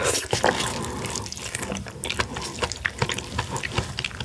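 Close-up wet slurping and sucking as soft raw king crab meat is drawn out of the leg shell by mouth, with many small wet clicks throughout.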